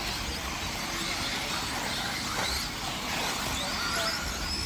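Electric RC buggies racing, their brushless motors whining in short glides that rise and fall in pitch as they speed up and slow down, over a steady background hiss.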